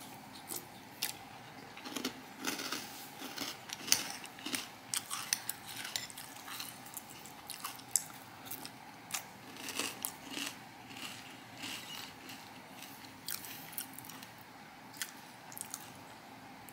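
Crunchy breakfast cereal being chewed close up: a string of irregular crackling crunches, loudest about four and eight seconds in.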